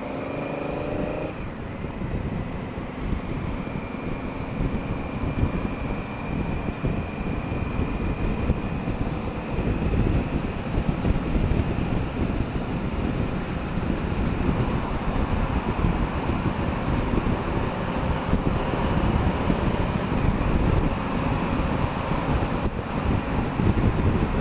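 Wind rushing over the camera microphone on a moving motorcycle, with the Honda Africa Twin CRF1000L's parallel-twin engine and road noise beneath it. It gets louder about ten seconds in as the bike picks up speed.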